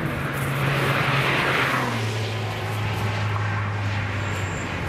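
A car passing at speed on a race track: tyre and engine noise swell to a peak about a second in, then the engine note drops in pitch about two seconds in as it goes by.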